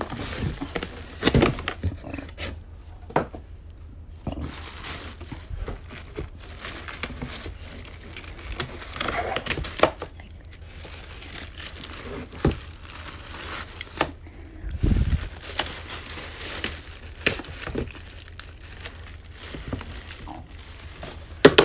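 Clear plastic bags crinkling and rustling as plastic-wrapped electric fan parts are handled in a cardboard box, with scattered sharp knocks and clicks.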